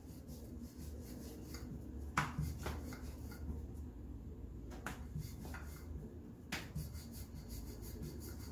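Paratha dough being flattened, floured and rolled with a wooden rolling pin on a rolling board: soft rubbing, with a few light knocks, over a faint low hum.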